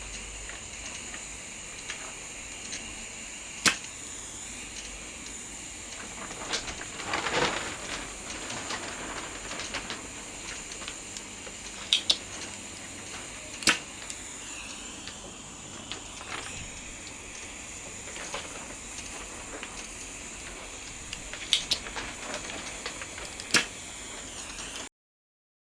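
Steady hiss of a butane gas soldering iron burning, with a handful of sharp clicks and taps of small tools being set down and handled, and a brief scraping rustle.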